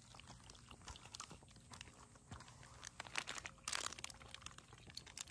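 Cat lapping milk from a bowl: quick, irregular small wet clicks of the tongue, with one louder brief rustle a little under four seconds in.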